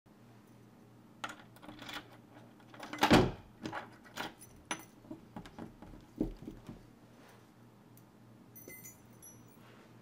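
Clicks, knocks and rattles of hands working at a door deadbolt, with one louder clunk about three seconds in. A few faint high chirps come just before the end.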